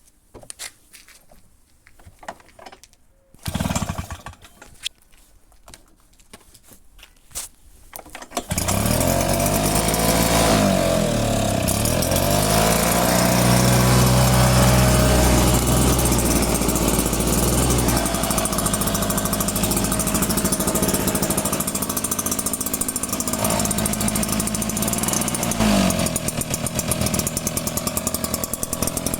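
A small two-stroke engine on a petrol garden tool starts: a few clicks and a short burst, then it catches about eight seconds in, revs up and down, and settles into running steadily.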